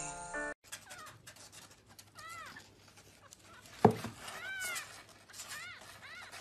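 A young kitten mewing in short, high-pitched, arching cries, several times over a few seconds. A single sharp knock comes about four seconds in.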